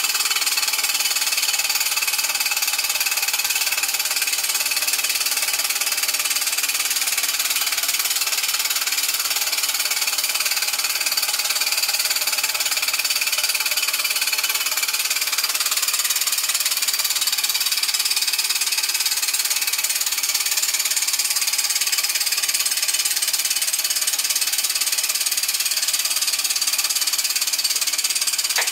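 Homemade model steam engine with a copper plumbing-pipe boiler running steadily on live steam: a rapid, even clatter and hiss of exhaust steam and working parts.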